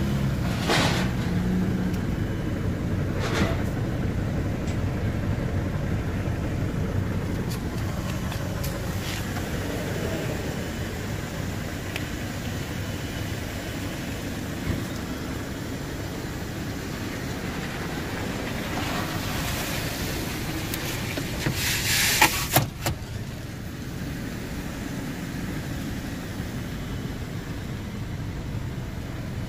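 Steady low rumble with a few light knocks as the SUV's doors and interior are handled, and a quick cluster of loud clacks about three-quarters of the way through as a door or the tailgate is worked.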